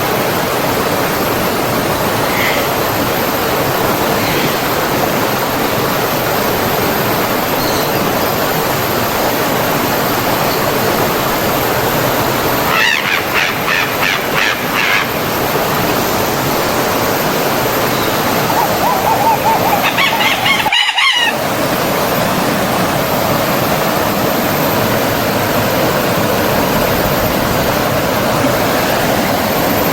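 Steady rush of a flowing forest stream, with bird calls over it: a few faint chirps early on, a run of quick repeated notes about halfway through, and a longer call a few seconds later that cuts off abruptly.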